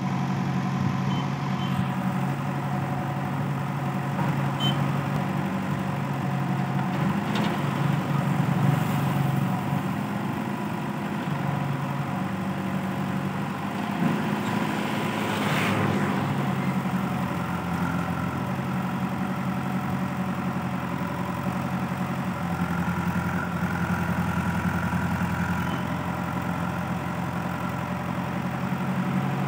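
Diesel engines of a JCB 3DX backhoe loader and a Sonalika tractor running steadily while the backhoe digs earth and loads it into the tractor's trolley. A few brief knocks and scrapes from the digging break in now and then.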